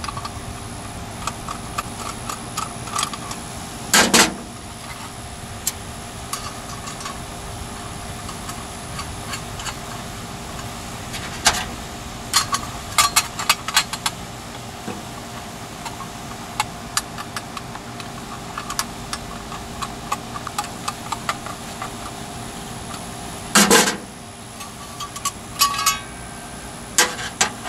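A screwdriver fastens a sheet-metal thermostat bracket to a metal plate by hand, giving scattered small clicks and clinks. Two louder metal knocks come about four seconds in and near the end. A steady hum runs underneath.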